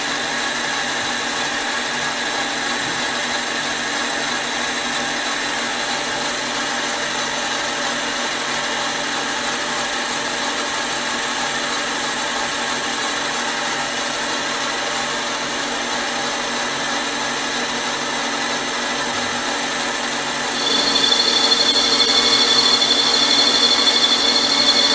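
Mini lathe running steadily with an even motor whine while the tool turns aluminium. Near the end the sound grows louder with a sharp high-pitched whine added.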